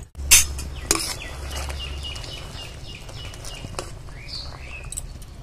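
A steel ladle knocks sharply against an aluminium kadai twice near the start, then stirs sweets in boiling sugar syrup, which bubbles. Short high chirps come quickly one after another in the background, like a bird.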